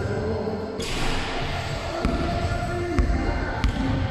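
A basketball bouncing on a wooden sports-hall floor: several separate thuds with the echo of a large hall, after a short hiss about a second in as the shot reaches the basket.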